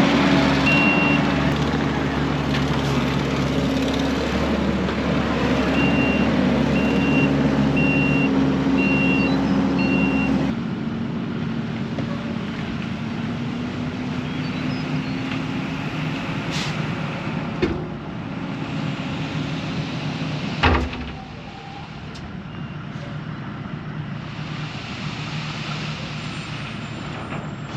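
Diesel engine of heavy earthmoving equipment running, with its backup alarm beeping about once a second. A third of the way through the sound changes to a quieter engine running, with a few metal clanks, one of them loud about two-thirds through.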